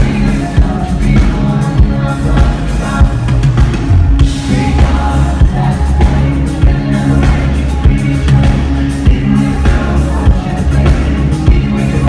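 Live pop-rock band playing through a concert PA: a steady drum-kit beat over sustained bass and synthesizer chords, loud and heard from the audience.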